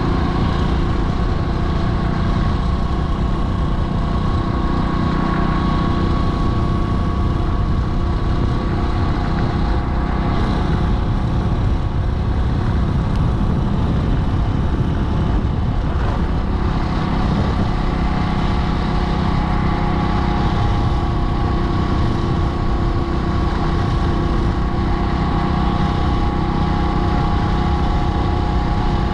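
Motorcycle engine running steadily at an even cruising speed, its pitch and loudness holding level throughout.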